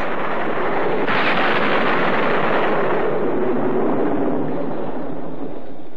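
Hurricane storm roar: a loud, dense rushing noise with no pitch, which grows brighter about a second in and eases slightly near the end.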